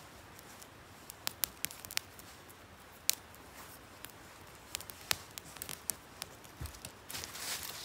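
Small campfire of dry twigs crackling, with scattered sharp pops and snaps. A brief stretch of rustling comes near the end.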